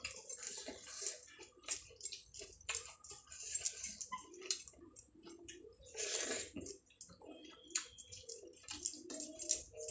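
Close-up eating sounds: irregular chewing with wet mouth clicks and smacks, and a longer squelchy noise about six seconds in.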